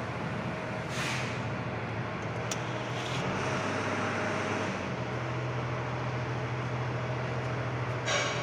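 An engine running steadily, an even low hum whose pitch shifts slightly about five seconds in, with a brief hiss about a second in.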